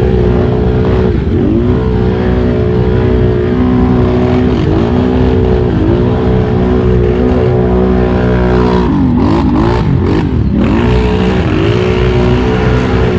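Can-Am Renegade ATV engine running at a steady pitch, its revs briefly dipping and recovering a few times, with a quick series of drops and rises in revs about nine to ten seconds in.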